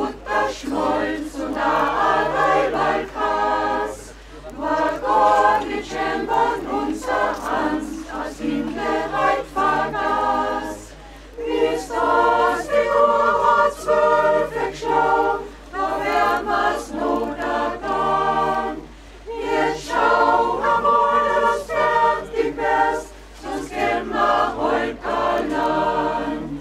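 Mixed choir of men's and women's voices singing a cappella, in phrases broken by brief pauses for breath.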